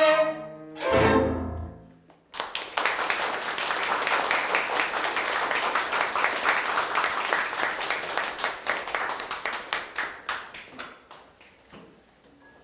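A bowed-string chamber ensemble ends on a final chord, and after a brief silence the audience applauds; the clapping thins out and fades near the end.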